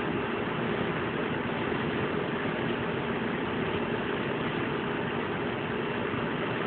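A steady mechanical hum with noise, unchanging throughout.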